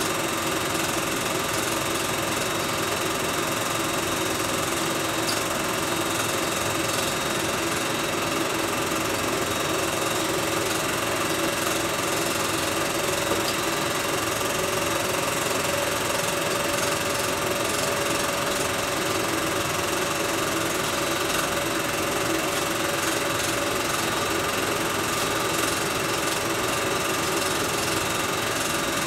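Film projector running steadily: an even mechanical whirr with several steady tones in it, unchanged throughout.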